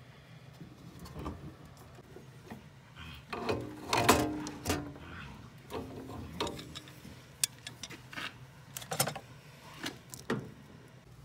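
Metal clicking and scraping of tongue-and-groove pliers tightening the threaded fitting of a braided gas hose onto a furnace gas valve, in irregular strokes, loudest about four seconds in.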